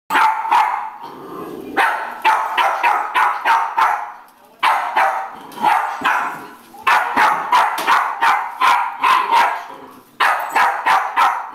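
Jack Russell terrier barking in volleys of quick, sharp barks, about three a second, with short pauses between the volleys.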